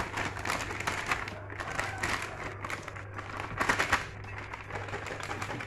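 Plastic flour bag crinkling as it is squeezed and shaken to empty wheat flour into a metal bowl, louder for a moment past the middle, over a steady low hum.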